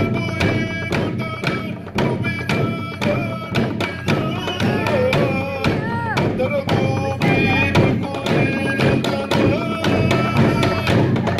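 Torres Strait Islander dance music: a steady drumbeat with group singing over it, some notes held and sliding in pitch.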